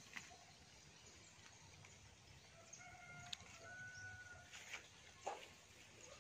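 A rooster crowing faintly, one drawn-out call in the middle, over near silence. Near the end come a few footsteps on dry grass and sticks.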